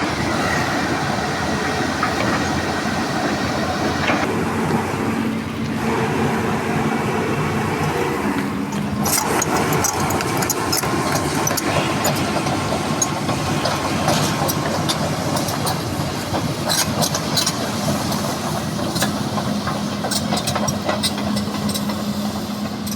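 Hitachi hydraulic excavator's diesel engine running steadily while it works, with scattered sharp clicks and knocks through the second half.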